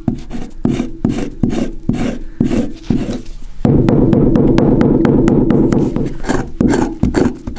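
A chert stone scraper scraping and a river cobble pounding a yucca leaf on a wooden block to strip the green pulp from the fibres, in quick repeated strokes of about three a second. A louder, continuous stretch of the same work runs from about four to six seconds in.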